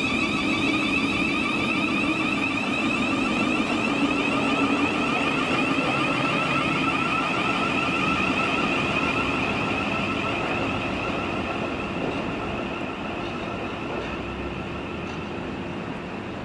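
Thameslink Class 700 electric multiple unit moving through the station, its traction equipment giving a steady electric whine of several stacked tones over wheel rumble, fading gradually over the last few seconds.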